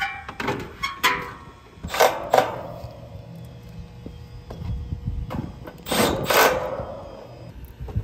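Metallic clanks and rattles from handling the condenser's wire fan grille and fan motor assembly against the sheet-metal cabinet. The loudest hits come in two pairs, about two and six seconds in, each ringing briefly.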